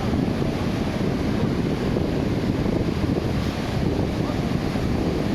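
Wind buffeting the microphone over a steady rushing background, with faint distant voices.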